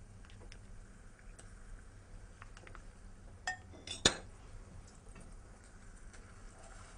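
Two metal clinks against a stainless steel saucepan, the second and louder about four seconds in, as butter goes into boiling sugar syrup. Between them there is only a faint low background.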